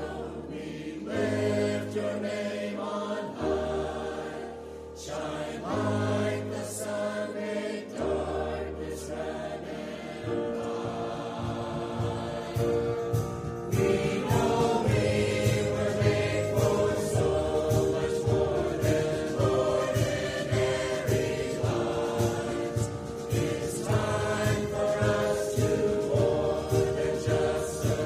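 Mixed choir singing a church anthem with instrumental accompaniment. Long held bass notes sit under the voices for the first ten seconds, then the accompaniment turns to a quick repeated pattern and the choir grows louder about fourteen seconds in.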